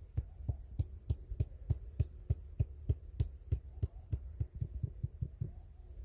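A thin wooden stick being tapped down into hard, dry soil: a steady run of dull taps, about three a second, that stops about five and a half seconds in.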